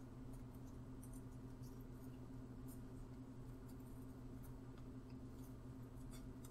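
Quiet room tone: a faint steady low electrical hum, with a few faint light ticks scattered through it.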